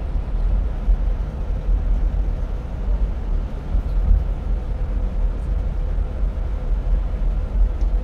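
Steady low rumble of a coach moving at about 60 km/h through a road tunnel, heard inside the passenger cabin, with a faint steady hum over it.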